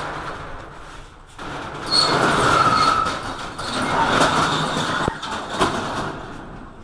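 Corrugated metal roller shutter being pushed up by hand, its slats rattling as they roll up, with a brief squeal a couple of seconds in.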